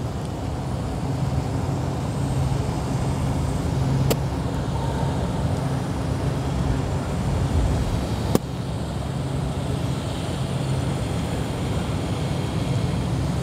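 Two sharp clicks of an upside-down golf iron striking a ball off a hitting mat on punch shots, about four seconds apart. Under them, a steady low hum of distant traffic.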